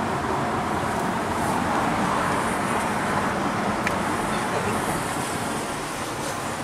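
Steady road, tyre and engine noise heard inside the cabin of a moving Ford Fusion sedan.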